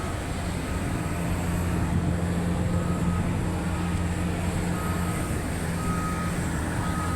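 A steady low engine rumble with a short, high reversing-alarm beep repeating about once a second.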